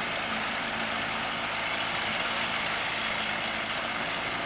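Small outboard motor running steadily, pushing the boat at trolling speed, under an even hiss.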